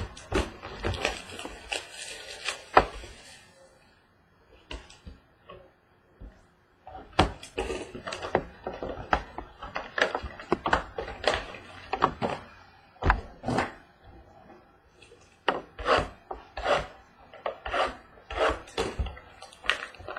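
A trading card box and its packaging being handled and opened: irregular sharp knocks, scrapes and rustles, with a quiet gap around five seconds in.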